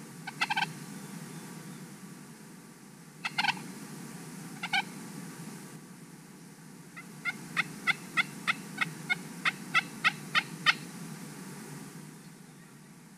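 Wild Merriam's turkey toms gobbling from the roost: three short gobbles in the first five seconds. Then a run of about a dozen evenly spaced turkey yelps, about three a second and louder than the gobbles.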